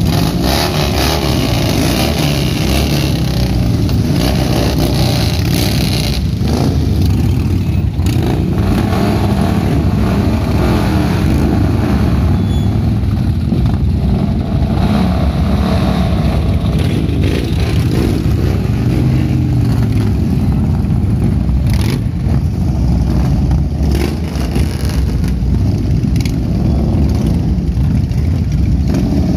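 A group of Harley-Davidson V-twin cruiser motorcycles running together, idling and revving as they pull away one after another, with the engine pitch rising and falling.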